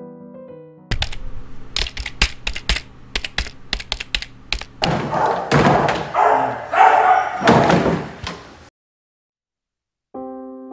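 Clicks and knocks of a plastic pet carrier being handled, then, about five seconds in, a dog barking amid scuffling inside the crate. The sound cuts off suddenly about a second before a piano tune starts.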